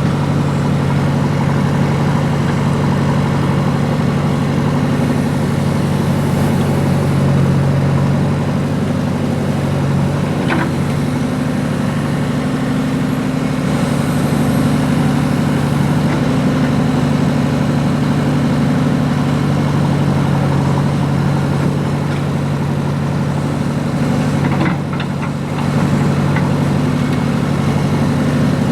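JCB excavator's diesel engine running steadily with a deep, even hum. There is a sharp knock about ten seconds in and another around twenty-five seconds, where the engine briefly drops in loudness.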